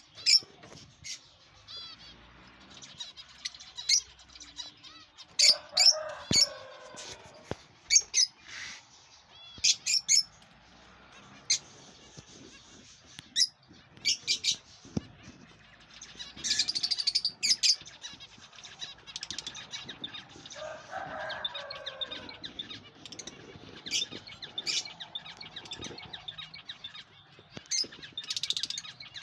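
Pet lovebirds chirping: many short, sharp, high-pitched chirps at irregular intervals, with a lower, longer call twice, about six seconds in and about twenty-one seconds in.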